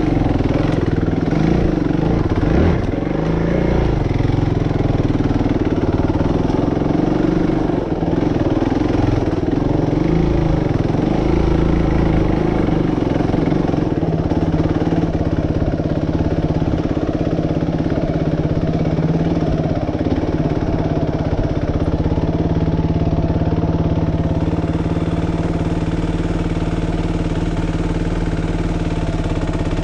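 Suzuki RMX450Z's single-cylinder four-stroke engine ridden slowly along a trail, its revs rising and falling with the throttle. About halfway through it settles into a steady idle.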